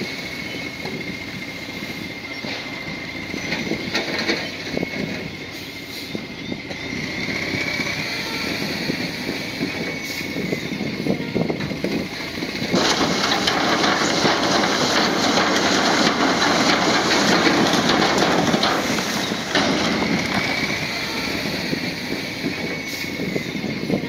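Bulldozer at work: its diesel engine runs with a steady, slightly wavering high whine. For about seven seconds in the middle, a louder rushing, grinding noise takes over before it settles back down.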